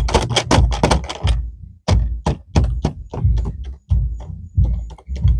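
Small plastic screw-lid storage containers in a diamond-painting storage tote clattering and knocking as they are handled: a quick, irregular run of sharp plastic clicks and knocks, several a second.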